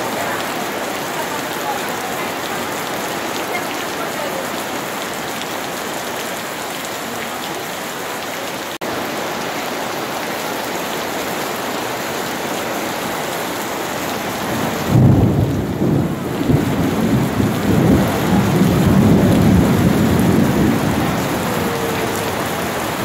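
Steady rain falling on wet paving and harbour water. About fifteen seconds in, a deep, uneven rumble of thunder starts and keeps rolling, louder than the rain.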